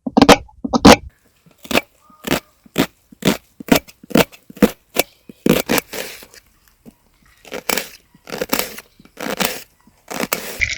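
Knife chopping onions on a cutting board: sharp, even chops about two a second, with a short pause midway.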